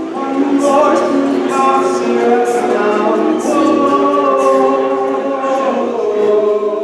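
A cappella vocal group singing in harmony, several voices holding long chords together.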